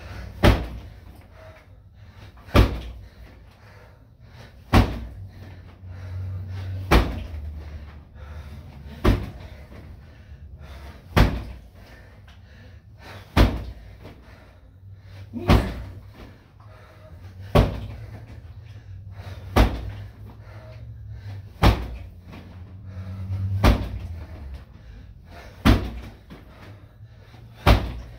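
Punches and kicks landing on a free-standing BOB (Body Opponent Bag) training dummy: a hard thud about every two seconds, fourteen in all, with a low rumble between the hits.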